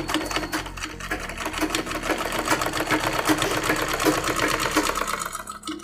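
Vishal sewing machine stitching a zipper tape onto a jacket, a fast, even run of needle strokes that stops just before the end.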